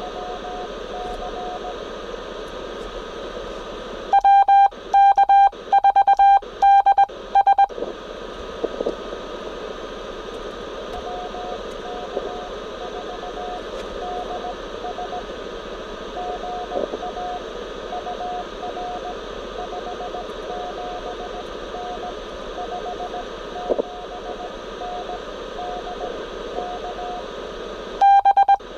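Ten-Tec Scout 555 HF transceiver on the 20 m band, sounding Morse code (CW) over a steady hiss of band noise from its speaker. A faint incoming CW signal is keyed through much of it, while from about four to eight seconds in, and again at the very end, a much louder, slightly higher sidetone beeps out the operator's own keyed sending in the contact.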